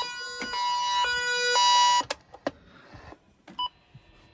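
Weather alert radio sounding its electronic alert tone, a two-pitch beeping that switches about twice a second. It cuts off about two seconds in, followed by a few faint clicks.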